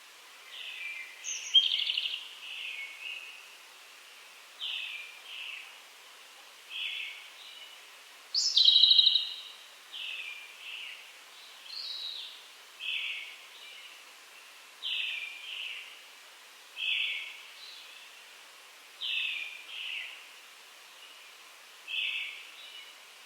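Wild birds singing at dawn, among them brown-headed thrushes and Japanese robins: short two- and three-note phrases repeated every second or two, with a louder rattling trill about eight seconds in.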